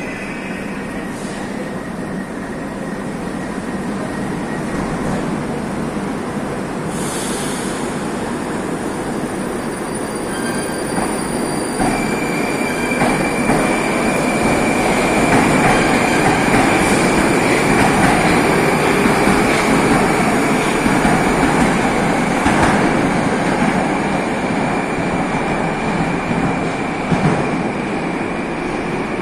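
Metro train pulling out of the platform: its running noise builds as it gathers speed past, with a steady high whine joining partway through, then eases as the last cars leave the station.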